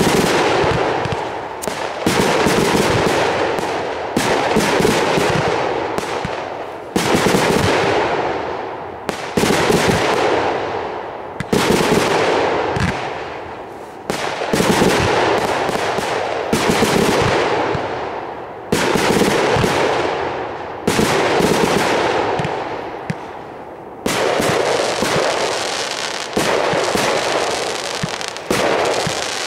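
Fireworks display: aerial shells bursting and comets launching in rapid volleys. A loud bang comes about every two seconds, each trailed by dense popping that fades before the next.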